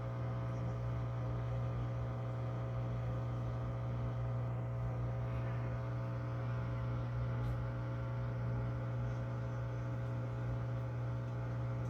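LG Inverter Turbo Drum washing machine running with a steady hum and no spin: the drum does not go into its spin cycle.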